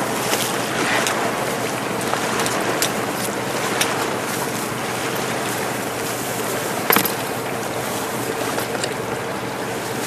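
Sea waves washing and splashing against the rocks of a breakwater, with wind buffeting the microphone. A sharp knock about seven seconds in.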